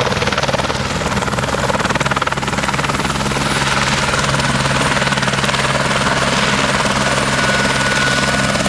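Helicopter on the ground with its rotor turning, the turbine and rotor running steadily. A thin high whine comes in near the end.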